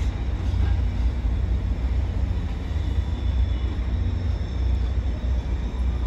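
Caltrain bilevel gallery passenger cars rolling past on the tracks: a steady low rumble.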